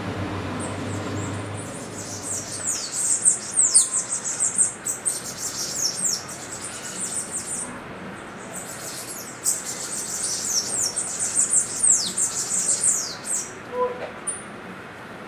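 Bananaquits singing: fast runs of very high, thin notes, each slurring sharply downward, in two long bursts, the first about three seconds in and the second near ten seconds.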